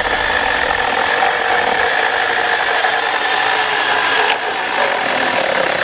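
Milwaukee battery-powered mini chainsaw running under load, its chain cutting through an old pallet board: a steady motor whine over the rattle of chain and wood chips. The sound shifts slightly about four seconds in.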